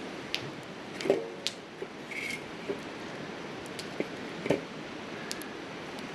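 Wood fire crackling in a Coleman Fire Disc fire pit: sharp pops and snaps come every second or so over a steady hiss.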